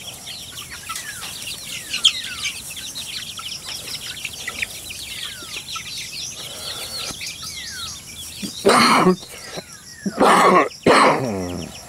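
Young chickens peeping: many short, falling chirps overlapping continuously. Near the end come three louder sounds, each under a second long.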